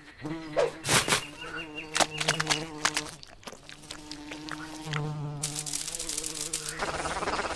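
Buzzing of a swarm of houseflies, a steady droning hum that drops out and returns, with several sharp clicks around one and two seconds in. A dry crackling hiss comes in near the end.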